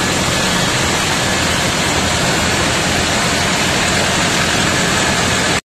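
A small rice mill running: the engine that drives it and the milling machinery make a loud, steady din with a low hum underneath. The sound cuts off suddenly near the end.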